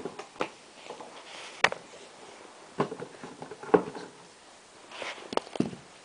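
Airsoft pyro grenades and their packaging being handled: irregular sharp knocks and clicks as the items are picked up and set down, about six in all, with a brief rustle near the end.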